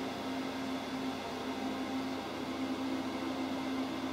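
Steady background hum with a low tone and a faint even hiss, typical of a running fan or similar appliance in a small room.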